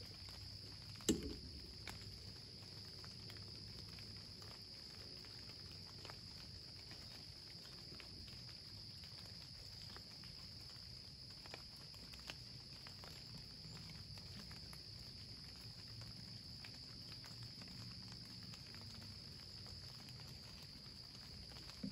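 Faint, steady chorus of insects such as crickets: one constant high-pitched trill that never lets up. There is a single sharp click about a second in, and a few soft ticks later.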